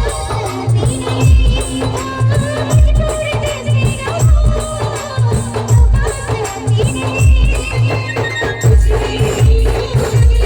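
Band music from a Hindi song played by a live band: a heavy bass drum beat about every one and a half seconds, with fast shaken percussion and a melody line over it.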